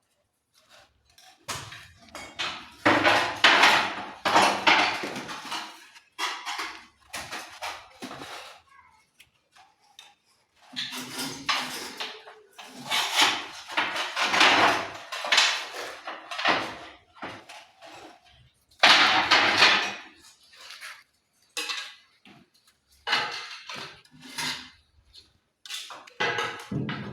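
Tiling work: hard tools scraping and clinking against mortar and ceramic tiles in irregular bursts, with several sharp knocks between them.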